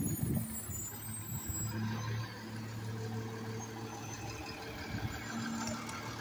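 Garbage truck's diesel engine running with a steady low hum, and a knock right at the start.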